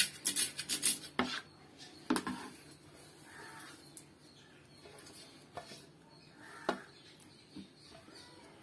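Steel knife on a stainless steel plate: a quick run of sharp chopping and scraping strokes in the first second or so, then occasional clinks and scrapes as the chopped coriander and green chilli are pushed off the plate, with one louder clink near the end.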